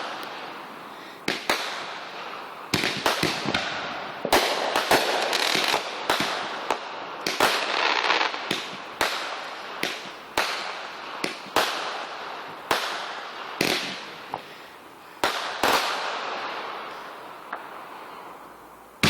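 Consumer fireworks going off in a string of sharp bangs, about one a second, each trailing off into a fading crackle.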